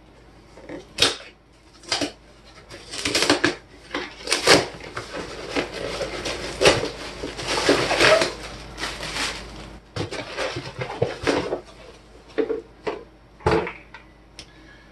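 A cardboard shipping box being opened by hand: sharp rips and knocks of the cardboard, then paper packing rustling and crinkling for several seconds from about three seconds in, with a few more knocks near the end as the boxed item is lifted out.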